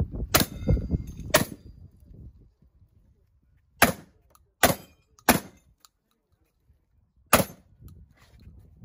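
Six sharp pistol shots fired during a practical shooting stage. There are two in the first second and a half, the first followed by a brief metallic ring. Three more come about two-thirds of a second apart between four and five and a half seconds in, and a last one about seven and a half seconds in. Wind rumbles on the microphone in the first two seconds.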